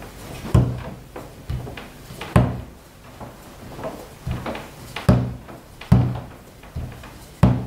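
Long wooden rolling pin working a stiff dough sheet out on a wooden board: a series of dull wooden knocks, about one a second, with each push and pull of the pin.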